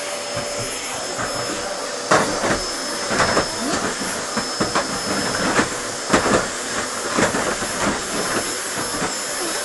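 Household vacuum cleaner running with a steady hiss and a thin high whine, with irregular short knocks and clatters through it.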